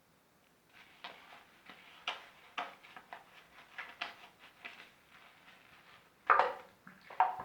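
Bar soap being lathered with wet hands: irregular wet rubbing and squishing strokes, about two a second, with two louder ones near the end.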